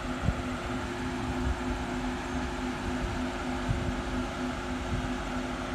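Steady hum of an idling car engine and fan, with a constant droning tone and a low rumble underneath.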